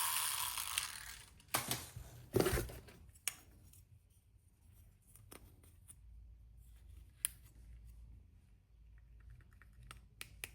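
Small plastic toy pieces being handled: a rustle that fades out, then scattered sharp clicks and taps, with a short run of tiny ticks near the end.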